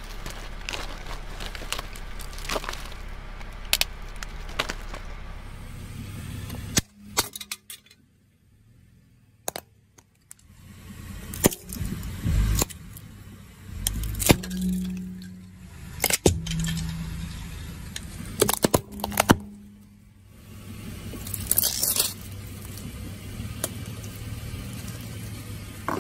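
A run of sharp cracks, clinks and crunches as small brittle objects, among them a cracked clear plastic ball and a small wooden toy chest of drawers, are handled and crushed under a car tyre. There is a brief near-quiet gap about eight seconds in.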